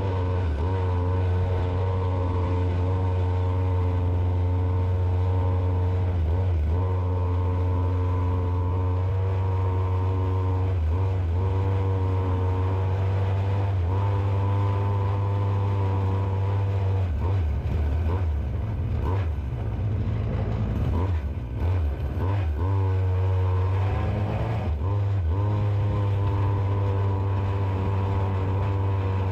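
Small two-stroke chainsaw engine with an oversized carburettor and ported muffler driving a go-kart, running at high revs with a steady pitch. About two-thirds of the way through, the revs sag and waver, then climb back up and hold steady again.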